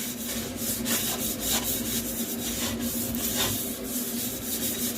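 A paintbrush spreading oven-cleaning gel across oven door glass: repeated scratchy brush strokes, over a steady low hum.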